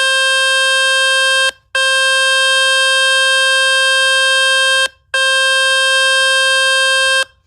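Samsung Galaxy A55 loudspeaker playing a loud, buzzy speaker-cleaning tone from the Fix My Speaker website, meant to shake dust and water out of the speaker grille. The tone holds steady in three long stretches, broken by two short gaps about a second and a half in and about five seconds in, and stops near the end.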